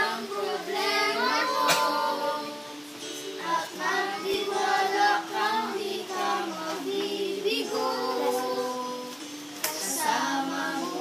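A woman and young girls singing a Tagalog song together, their voices holding long notes with short breaks between phrases.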